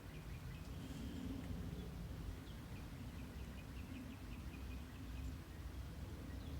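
A bird chirping in rapid runs of short high notes, about five or six a second, twice, over a low steady background rumble.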